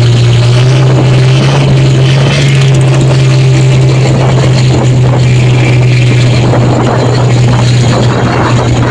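Small engine of a motorized wooden outrigger boat running steadily at cruising speed: a loud low drone that holds one pitch.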